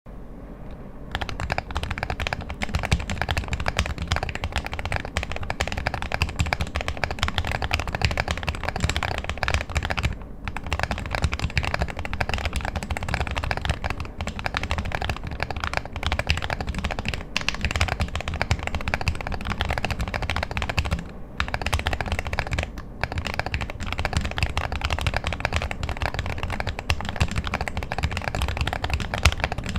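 Fast, continuous typing on a handwired Sheesh40 mechanical keyboard with lubed KTT Blue Jacaranda switches: a dense run of key presses that starts about a second in, with a few short pauses.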